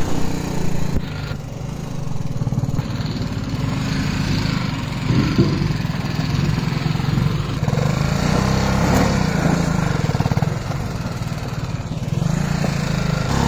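BMW G310GS motorcycle's single-cylinder engine running as the bike rides over a rough gravel track.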